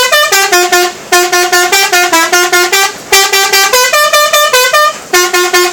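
Telolet multi-tone bus horn playing a quick melody, about five or six short notes a second hopping between a few pitches, in phrases broken by three brief pauses.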